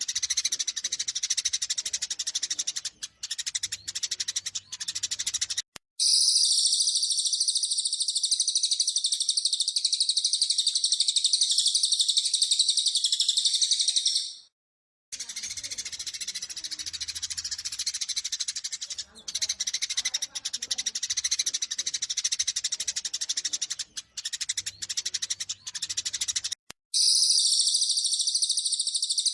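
Eurasian tree sparrows chattering in rapid, agitated fighting calls. Twice they give way to a long, dense, high-pitched trill without breaks, once for about eight seconds and again near the end, with a short silence between the first trill and the next stretch of chatter.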